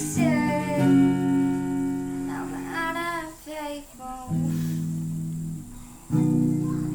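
Acoustic guitar playing a few strummed chords, each left to ring, with a short sung phrase in the first few seconds.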